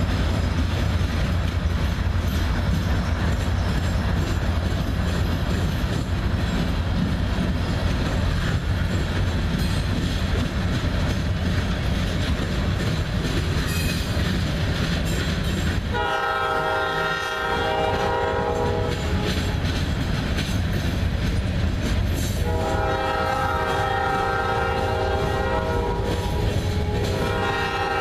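Diesel-hauled freight train rolling past, its cars rumbling and clacking over the rails. A locomotive horn sounds three times: a blast about 16 seconds in, a longer one from about 22 seconds, and a third starting near the end.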